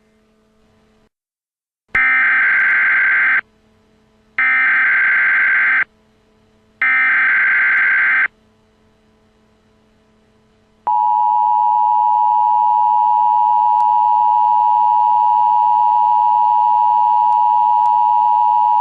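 Emergency Alert System tones in a mock-up alert: three bursts of buzzy digital SAME header data, about a second and a half each, then, about 11 seconds in, the steady two-tone attention signal. The sequence opens a new alert, here a tornado warning.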